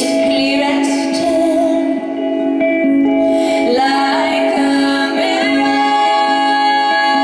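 Live band music: a woman's voice sings a slow, gliding melody over steady held notes of the accompaniment.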